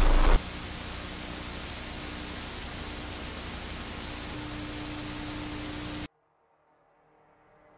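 Television static: a steady, even hiss of white noise with a faint low hum underneath. It cuts off suddenly about six seconds in.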